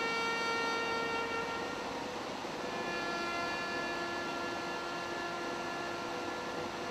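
Military band trumpets playing a slow call of long held notes: one note ends just under two seconds in, and after a short break a lower note is held for about four seconds.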